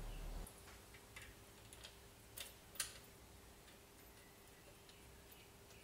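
Near-quiet room tone with a few sharp, scattered clicks and ticks, the loudest just under three seconds in. A low hum cuts off about half a second in, leaving a faint steady tone.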